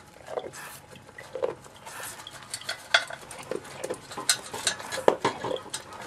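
Hand-milking a goat: a quick, irregular run of short squirts of milk into a pail, with light clinks.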